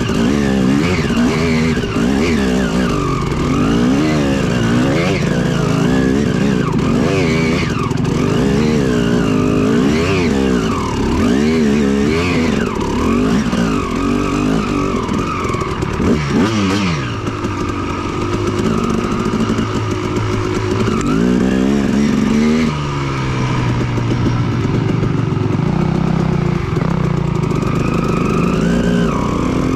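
Yamaha WR450F dirt bike's single-cylinder four-stroke engine revving up and down over and over as the throttle is opened and closed.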